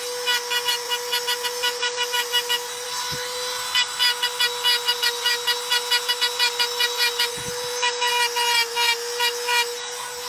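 Hand-held electric rotary grinder engraving a stone slab: a steady, high-pitched motor whine with a rapid, even chatter of about five or six pulses a second as the bit cuts into the stone. The chatter stops briefly twice.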